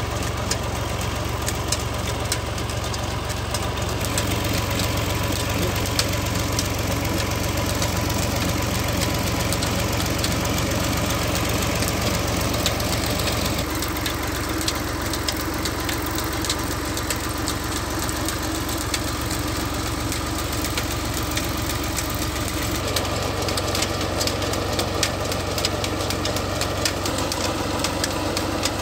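Al-Ghazi diesel tractor engine running at a steady speed, turning a PTO shaft that belt-drives a tube well pump, with fast light ticks over the engine's even hum.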